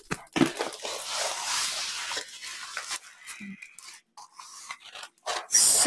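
Rustling and crinkling of a rolled diamond-painting canvas being unrolled and smoothed flat, loudest for a second or so near the start.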